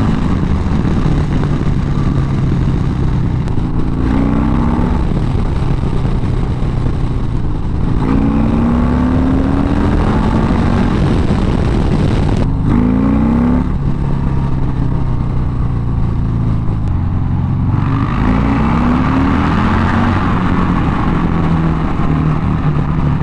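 Harley-Davidson with an S&S 128 cubic-inch V-twin, Star Racing 30/30 cam and S&S SuperStreet 2-into-1 exhaust, revving up about four times, each time climbing in pitch and then falling back to a lower, steady run.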